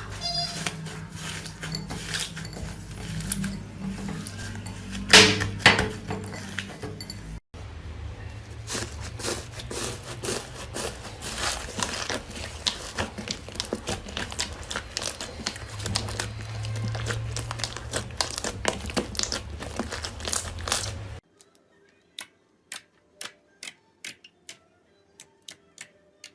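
Slime being squeezed and pressed by hand, giving dense crackling and clicking pops, with two louder sharp pops about five seconds in. Near the end the crackle thins out to a few separate clicks.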